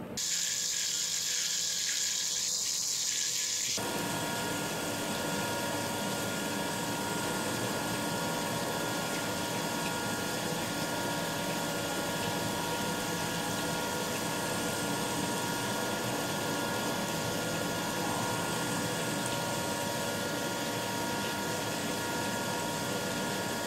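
3-axis CNC mill cutting the teeth of a stainless steel gear with an end mill under flood coolant, on a full-depth finishing pass: a steady hiss of coolant spray with several steady whining tones. About four seconds in the sound changes from a thinner, higher hiss to this fuller one.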